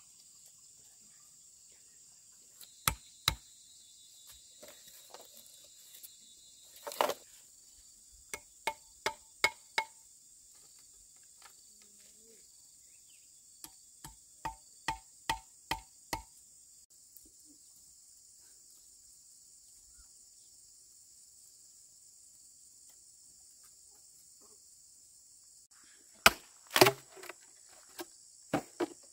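Sharp chopping blows on wood, in short runs of two or three blows a second with long pauses between, the loudest blows near the end. A steady high insect drone runs underneath.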